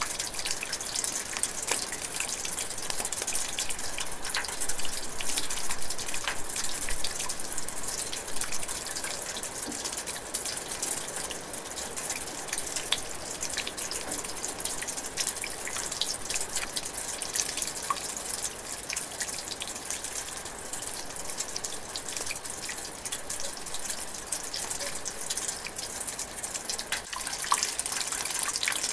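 Steady rain drizzling in a forest, a dense hiss of rainfall with many individual drops landing close by.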